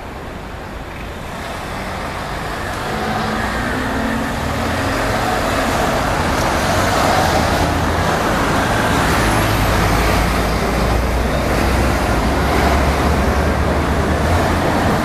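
Road traffic: car and heavy-vehicle engines with tyre noise, growing louder over the first few seconds and then steady.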